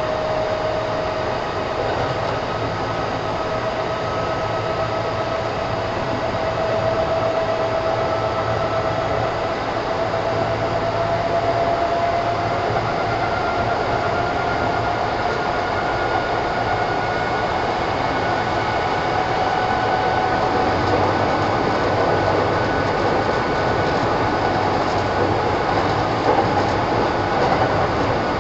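Kintetsu 1000 series electric train running, its motor and gear whine climbing slowly in pitch as it gains speed, over a steady rumble of wheels on rail. A few clicks near the end.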